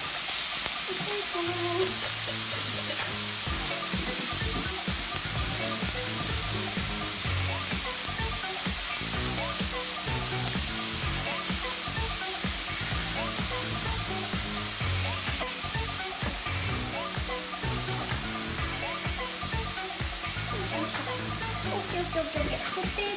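Hamburger patties and potato wedges sizzling steadily as they fry in two pans.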